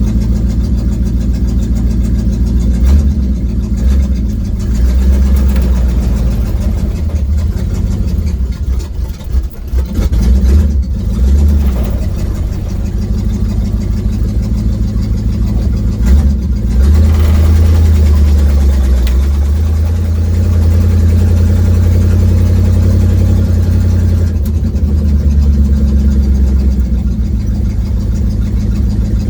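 1972 Ford Mustang engine and leaking exhaust heard from inside the cabin while driving. The engine note wavers and breaks up briefly about ten seconds in, then settles into a steady low drone.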